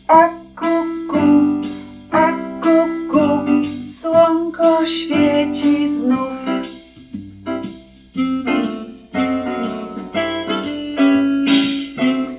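Keyboard backing track for a simple children's song: piano-like notes struck in a steady, bouncy rhythm, with a short break just before the last phrase.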